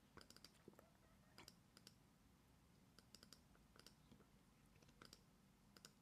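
Near silence with faint, scattered computer mouse clicks, several small clusters of quick clicks.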